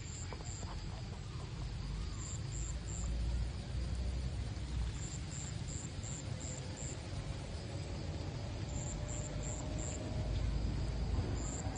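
Outdoor ambience: a steady low rumble that grows louder near the end, with an insect chirping in short runs of high, evenly spaced pulses every few seconds.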